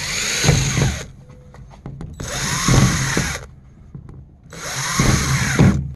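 Cordless drill boring small holes through a plastic storage-bin lid in three short bursts, each about a second long, the motor rising in pitch as it spins up and falling as it slows.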